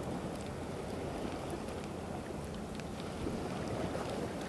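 Steady low rush of wind on the microphone mixed with calm sea water lapping, with a few faint ticks over it.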